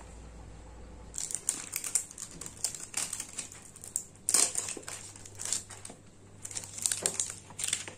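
Hands handling a paper receipt and the plastic shrink wrap on a phone box, making irregular crinkling and crackling that starts about a second in.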